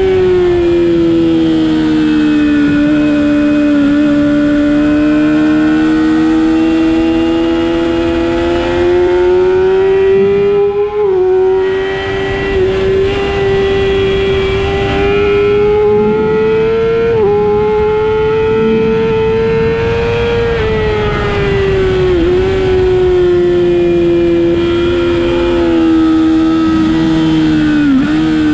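Sport motorcycle engine running hard at high revs on track, its pitch climbing and falling as the bike accelerates and slows, with brief sharp dips at gear changes about four times. Steady wind rush on the onboard microphone underneath.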